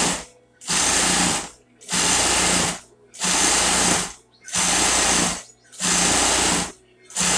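Sewing machine stitching through two layers of non-woven TNT fabric in short runs of about a second each, stopping briefly between runs, about six times.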